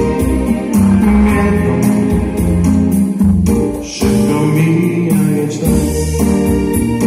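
A singer performing a retro Polish pop song live to electronic keyboard accompaniment, with a steady drum beat and bass underneath.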